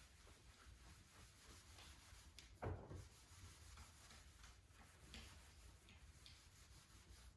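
Faint rubbing of a towel wiping clay-bar lubricant off car paint, with one dull knock nearly three seconds in.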